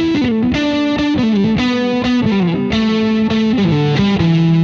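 Distorted electric guitar playing a quick two-string lick on the G and D strings, a stream of picked notes that works its way down the neck and falls in pitch.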